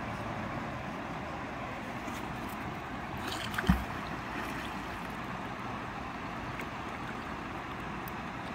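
A thrown magnet-fishing magnet lands in the river with a single sharp splash about three and a half seconds in, over the steady sound of flowing river water.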